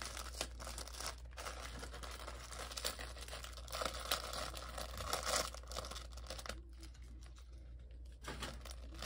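Plastic craft packaging being handled and torn open by hand: dense crinkling and crackling, with a quieter stretch about two-thirds of the way through.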